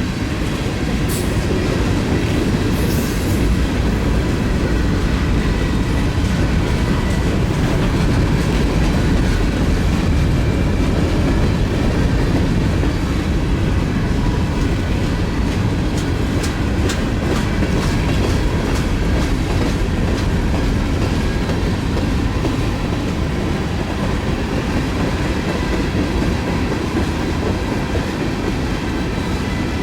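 Freight train rolling past, a steady rumble with the clickety-clack of wheels over rail joints and a few scattered clicks.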